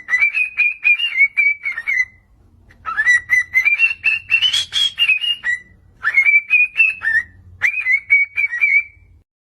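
High-pitched whistling in four runs, each sweeping up at the start and then stepping through quick warbling notes, with short pauses between the runs.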